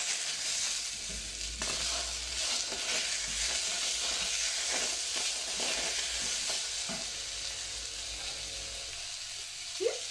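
Halved tomatoes sizzling in a hot stainless steel pot while a wooden spoon stirs and scrapes them, with a steady hiss and irregular scraping strokes. The heat is too high and is about to be turned back down.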